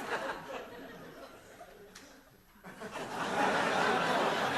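Studio audience laughing, dying down to a lull about two seconds in, then swelling up again about three seconds in.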